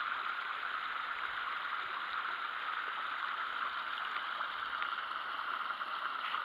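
Small shallow stream trickling steadily over rocks.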